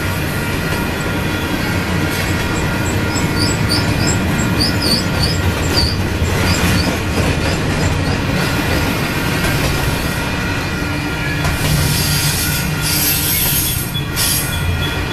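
Double-stack container train cars rolling past with a steady rumble of wheels on rail. A series of short, high wheel squeals comes about three to six seconds in.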